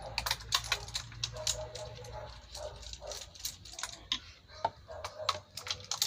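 Hand ratchet on a long extension clicking in short, irregular strokes as spark plugs are unscrewed.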